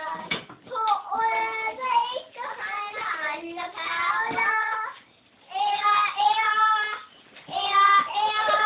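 A young girl singing a song with held, high notes, breaking off briefly about five seconds in and again about seven seconds in.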